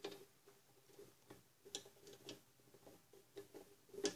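Faint, irregular clicks and light taps as a drill bit is fitted into a drill press chuck, with the drill press switched off.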